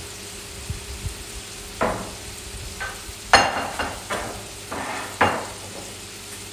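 Breaded sweet potato croquettes deep-frying in a skillet of hot oil: a steady sizzle broken by several sharp pops and crackles between about two and five seconds in, the loudest just past three seconds.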